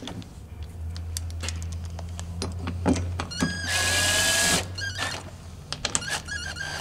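Cordless drill with a socket extension running in short spurts, driving 10 mm bolts into a seat-side bracket. The loudest run is a whirring whine about halfway through, with small metallic clicks in between.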